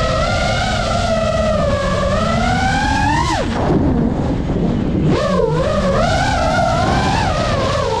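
FPV racing drone's brushless motors whining, the pitch wavering with throttle; about three seconds in the whine falls steeply as the throttle is cut for a flip and dive, stays low and rough for over a second, then climbs sharply again as power comes back, over steady rushing prop wash.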